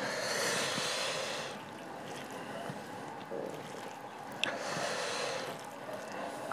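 Two long, breathy rushes of air, each lasting over a second, from a man breathing hard through his mouth while eating spicy snail curry and rice. Faint soft sounds of rice being worked by hand come in between.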